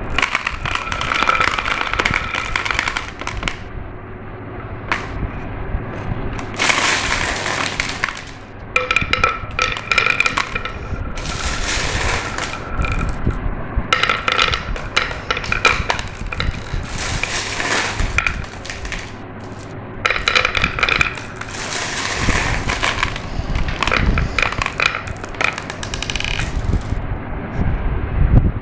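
Glass marbles rolling and clattering down a marble run, in repeated bursts of rapid clicks, some with a ringing tone, between quieter rolling stretches.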